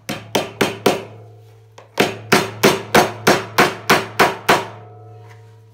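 Hammer tapping a fastener into a wooden sewing-machine table: four quick blows, then after a short pause about nine more at a steady pace of about three a second, each with a short ring.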